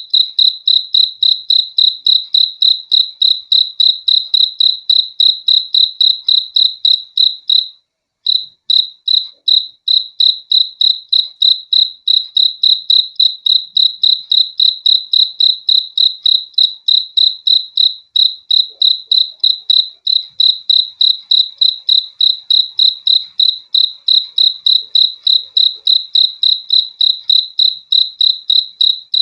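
A cricket chirping in a fast, even, high-pitched pulse of about four chirps a second. It breaks off briefly about eight seconds in, then picks up again.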